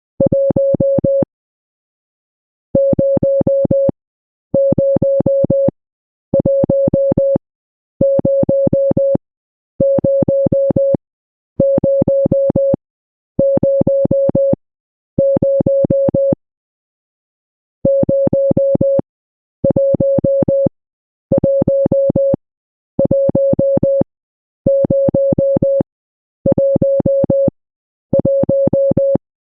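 Morse code beeps: a mid-pitched, slightly buzzy tone keyed in a long run of identical dashes, each about a second long with short gaps between them. The run pauses a little longer twice, once near the start and once about halfway through.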